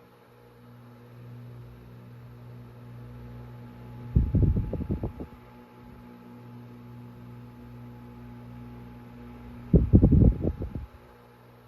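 1947 General Electric 10-inch Vortalex table fan running on low, its shaded-pole motor giving a steady hum. Twice, about four and ten seconds in, its breeze buffets the microphone with a low rumble lasting about a second as the oscillating head sweeps past.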